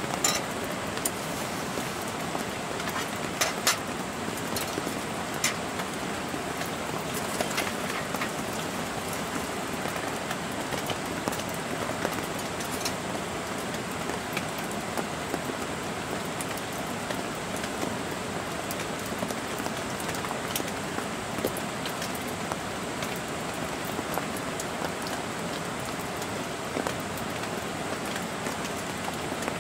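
Steady rain falling, with a few light clicks and knocks in the first eight seconds or so.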